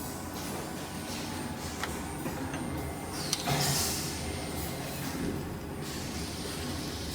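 Steady low machine hum in a workshop, with a few faint clicks and a brief hissing scrape about halfway through.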